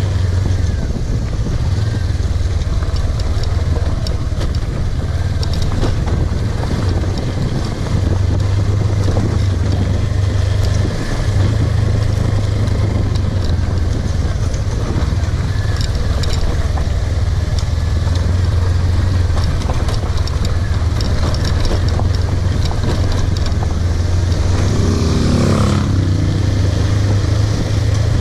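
Suzuki V-Strom 250's parallel-twin engine running steadily as the motorcycle is ridden off-road, with a deep constant rumble. Near the end the engine note briefly rises.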